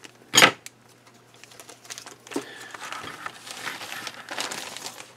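Clear plastic bag around model kit sprues crinkling as it is handled. There is one sharp, loud crackle about half a second in, then softer, scattered crinkling.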